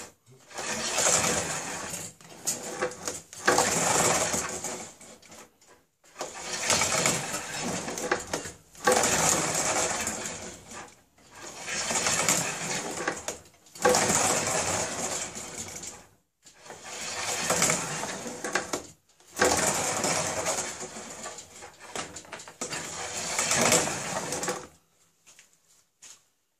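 Hand-worked wooden rifling bench: the carriage with its spiral guide drum is pushed and pulled along the rails, drawing the rifling cutter through the steel rifle barrel. Each stroke makes a long scraping hiss. There are about ten strokes with short pauses between them, and they stop shortly before the end.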